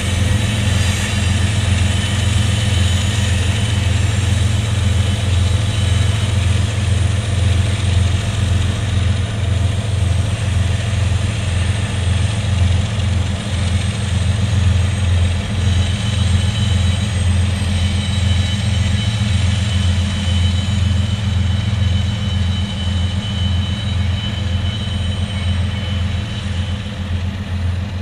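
Diesel locomotive engine running steadily, a deep, rapidly pulsing drone that eases slightly near the end.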